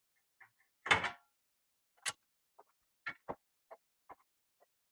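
Screwdriver backing out the screws of a door latch plate: a string of irregular small clicks and knocks, the loudest about a second in.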